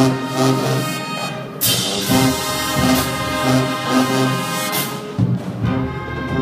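High school band playing a slow ballad: brass holding sustained chords, with a bright crash about one and a half seconds in and another near five seconds.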